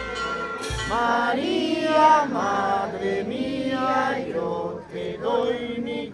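Voices singing a slow religious hymn together, in drawn-out phrases that rise and fall, starting about a second in after a single drum stroke.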